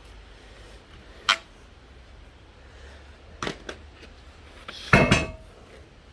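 A few separate sharp knocks and clanks: one about a second in, two quick ones past the middle, and a louder double clank with a brief metallic ring near the end.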